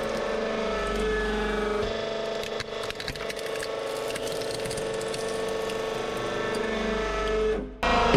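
Hydraulic press running with a steady pump whine as its ram crushes plastic toy cars, with scattered cracks and snaps of breaking plastic. The sound drops out briefly near the end, then the whine resumes.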